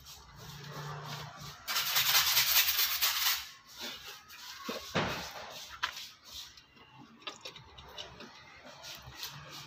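Harsh scraping that lasts about a second and a half, then a single knock about five seconds in, with softer handling noises around it.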